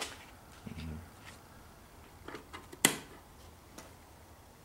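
Quiet handling sounds: a soft low bump about a second in, a few faint ticks, and one sharp click a little before three seconds in.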